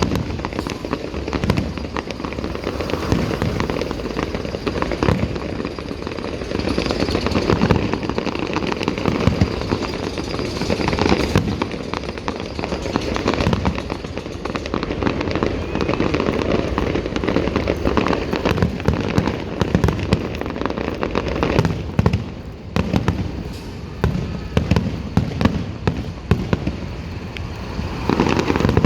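Fireworks display: a dense, continuous run of bangs and crackling bursts, dipping briefly a little over twenty seconds in before picking up again.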